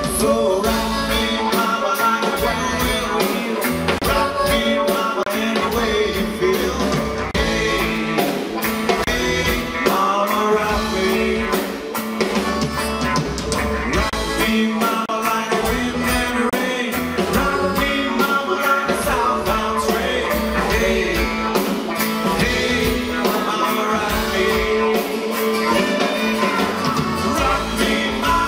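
Instrumental break of an upbeat country-rock song: guitar over a drum kit keeping a steady beat.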